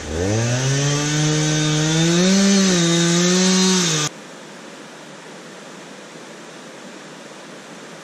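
Chainsaw engine revving from low to full throttle within the first half-second, held at high speed, then cut off abruptly about four seconds in. Rushing river water continues afterwards.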